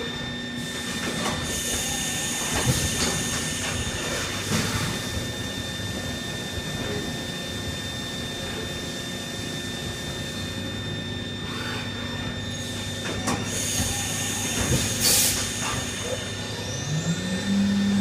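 Haas VF-2 CNC vertical milling machine running: a steady mechanical hum with a constant high whine, scattered clicks and knocks, and a short rise and fall in pitch near the end.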